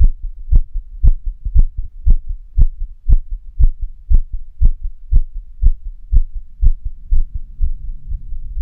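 A human heartbeat, recorded close up, beating fast at about two beats a second, quickened by physical activity. From about seven seconds in the beats grow fainter under a low rumbling noise.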